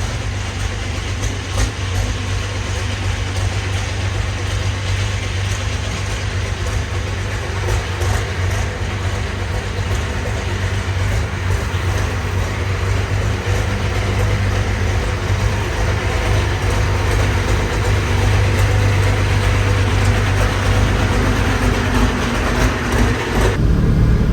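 Limited Pro Stock pulling tractor's diesel engine running steadily, a deep hum under a broad haze of noise that slowly grows louder.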